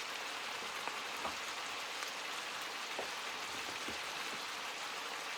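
Chicken pieces frying in oil in a pan, with a steady sizzle and a few faint clicks.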